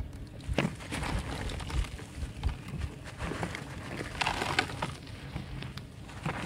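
Dry red dirt chunks crushed and crumbled by hand, crunching and crackling as lumps and grit fall onto a pile in a water-filled steel pot, with a thicker burst of crackling about four seconds in.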